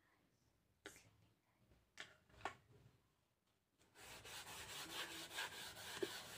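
Chalk lines being wiped off a slate with an eraser: a dry, scrubbing rub that starts about halfway through and lasts a little over two seconds. It comes after a few faint taps.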